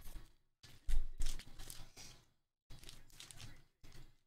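Trading cards and their plastic sleeves and holders rustling and scraping as they are handled, in several short bursts with silent gaps.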